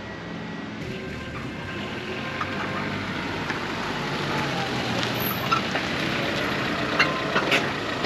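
1994 Honda Accord on new wheels and lowered suspension rolling slowly up to the camera, its engine and tyre noise growing steadily louder as it approaches.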